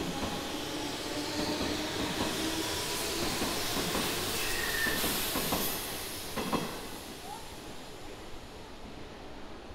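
Electric commuter train moving along the station tracks, getting louder to a peak about five seconds in and then fading. A few sharp clicks from the wheels and a brief high squeal come near the middle.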